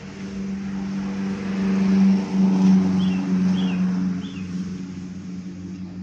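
Vehicle engine running, growing louder about two seconds in and easing off again after about four seconds.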